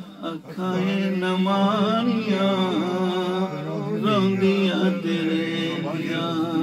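A man singing a Punjabi devotional song to the Prophet (a naat) solo into a microphone. After a brief breath at the start he draws out long notes that waver and bend in pitch.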